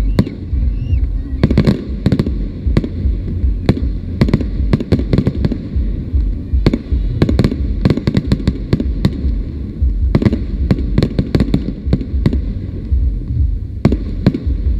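Fireworks display: aerial shells bursting in an irregular, rapid string of sharp bangs and crackles, bunched in quick runs with short gaps between, over a steady low rumble.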